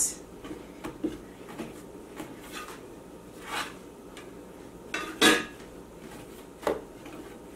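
A few scattered knocks and clinks of kitchen utensils on a work surface, the loudest about five seconds in.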